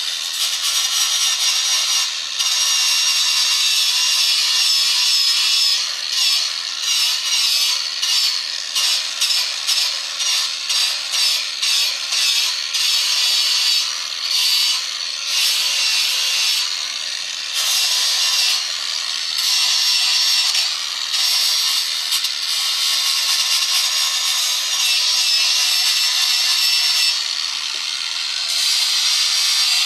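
Wood being cut or shaped by hand for an airgun stock: a loud scraping noise that runs in regular back-and-forth strokes, about one to two a second through the middle, and steadier near the start and end.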